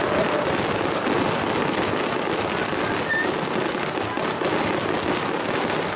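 Aerial fireworks display bursting continuously: a dense, steady crackle of many small pops, with no single loud boom standing out.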